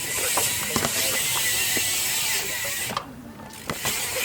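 BMX bike coasting on concrete, its freewheel rear hub ticking over a steady hiss of rolling tyres; the sound drops away briefly about three seconds in.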